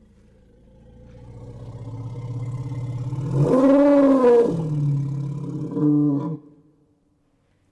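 Elephant vocalising: a low rumble that swells, then a loud trumpeting call rising and falling in pitch about three and a half seconds in, and a shorter call near six seconds before it stops.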